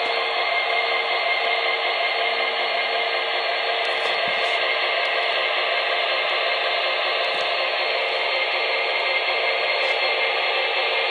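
Proto-Sound 3 diesel engine sound effects from four MTH SD70ACe model locomotives playing together through their small speakers: a steady, dense hiss-like rumble with almost no deep bass.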